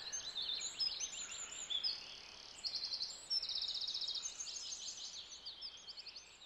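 Several songbirds singing together, a chorus of short chirps and whistles with fast, evenly repeated trills about a third and halfway through, over a faint outdoor hiss.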